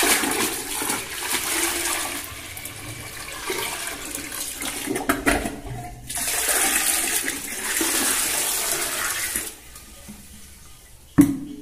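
Toilet being flushed: water rushing down into the bowl, starting abruptly, easing briefly about halfway and then rushing again before stopping. A single sharp knock near the end.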